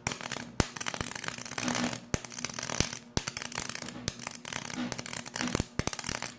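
Flux-cored welding arc crackling and spattering as ER5356 aluminum wire is fed from a Powerhouse welder, breaking off and restarting a few times, with a steady hum underneath. It is a rough, sputtering arc with wire that the owner finds will not weld aluminum well on this machine.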